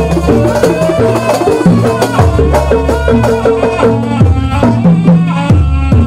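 Live jaranan accompaniment: a traditional Javanese percussion ensemble with a big bass drum, drums and gongs keeping a steady beat under a pitched melody line.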